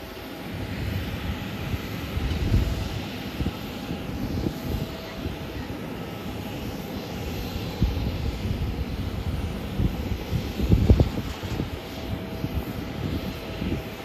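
Jet airliner engines running: a steady, broad rumble with a hiss above it that swells in strength, loudest about eleven seconds in.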